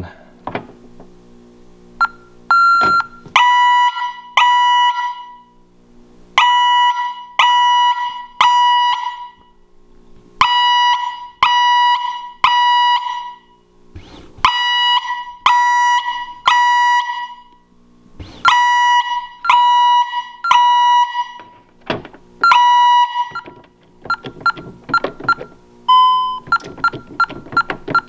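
Honeywell Vista security system's fire alarm sounding through its wall-mounted siren after the keypad's fire panic button is pressed: loud beeps in groups of three, the groups repeating about every four seconds in the temporal-three fire pattern. The pattern stops a few seconds before the end, and short keypad key-press beeps follow as a code is entered.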